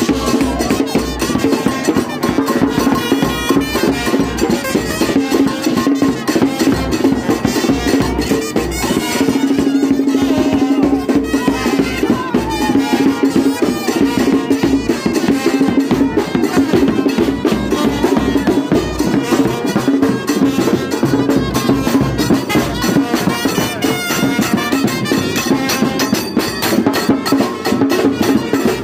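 Live brass band playing dance music: horns over a steady drum beat, with one long held horn note about ten seconds in.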